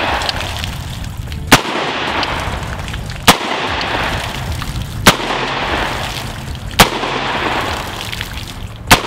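Five single gunshots from a handheld gun, evenly spaced about one every 1.7 seconds.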